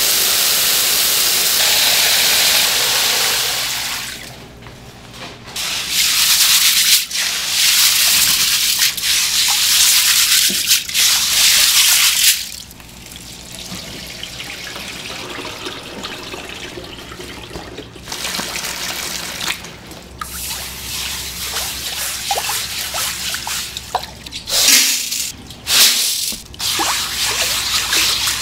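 Water spraying from a hose into a large stainless steel bowl of red adzuki beans to wash them. It pours loudly, breaks off about four seconds in and again about twelve seconds in, then gives way to softer trickling and splashing as the water overflows and is stirred.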